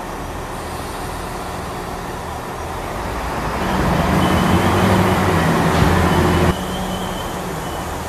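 Electric multiple-unit train at a station platform: a steady hum from its traction and onboard equipment. About three and a half seconds in, it swells into a louder drone with a faint high whine, then drops back suddenly a few seconds later.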